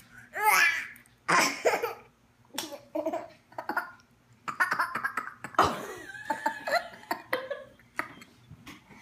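A toddler laughing in repeated bursts while being tickled, with an adult laughing along.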